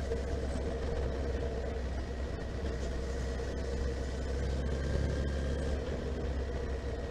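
Honda CB1300SF's inline-four engine running steadily while the motorcycle is ridden, heard as an even low rumble.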